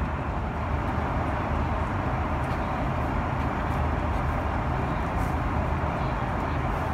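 Steady cabin noise of an Airbus A330-300 airliner in flight: an even roar of engines and airflow, strongest in the low end, with no change in level.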